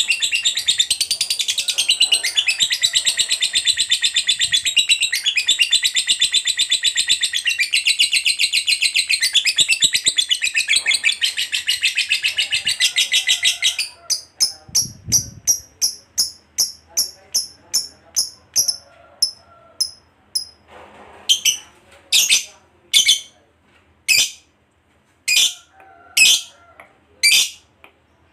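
Lovebird ngekek: a fast, unbroken, high-pitched chattering trill for about fourteen seconds, the long ngekek that keepers prize. It then breaks into separate sharp chirps, about two a second at first and slowing to about one a second near the end.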